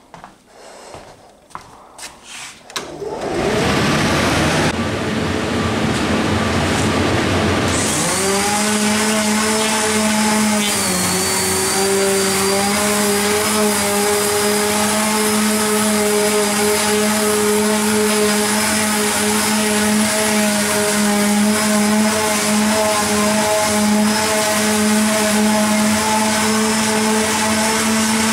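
A few clicks and knocks, then from about 3 s a large electric fan runs with a loud rush of air. From about 8 s an electric random orbital sander runs with a steady whine; its pitch dips briefly about 11 s in as it is set onto the birch plywood, then it holds steady while it sands the panel.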